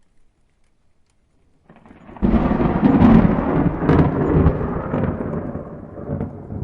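A peal of thunder. It builds briefly and breaks sharply about two seconds in, then rumbles loudly with a couple of cracks and slowly fades toward the end.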